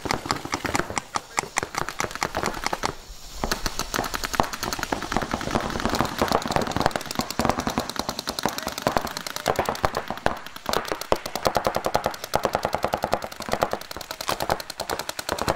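Paintball markers firing in fast, continuous strings of shots, with a brief lull about three seconds in.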